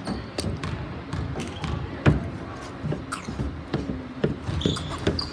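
Basketball bouncing on the court during play, a series of sharp irregular thuds, the loudest about two seconds in, with a few short high squeaks near the end.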